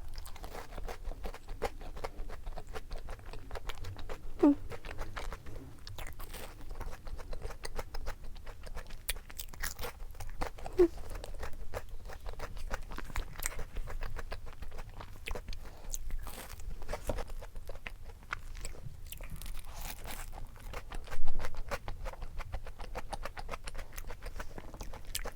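Close-miked chewing and biting of food, with irregular crunching and crackling and a few louder crunches. The loudest comes about three-quarters of the way through.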